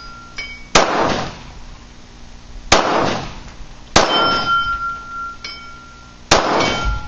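Four 9mm shots from a Glock 19 Gen 4 pistol, fired at an uneven pace roughly one to two and a half seconds apart. A steel gong target rings after the later hits, and the last hit knocks it down.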